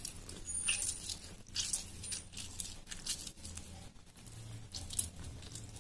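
Faint, scattered small clicks and light rustles of kitchen handling over a mixing bowl, with a low steady hum underneath.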